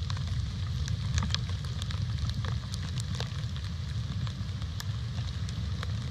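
Outdoor webcam ambience: a steady low rumble with many irregular, scattered crackling clicks and ticks.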